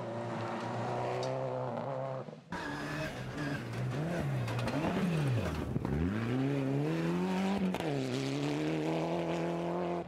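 Turbocharged four-cylinder rally car engines on a gravel stage. First a Subaru Impreza's engine holds steady revs. After a cut, a Mitsubishi Lancer Evolution revs hard, its pitch rising and falling through gear changes, dropping sharply and climbing again about six seconds in.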